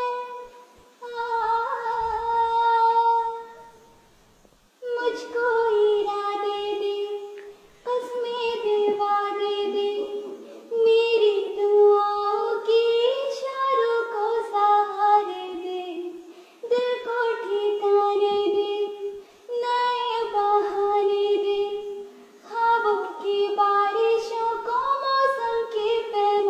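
A young girl singing solo without accompaniment, in held, gliding phrases of a few seconds each with short breaths between them.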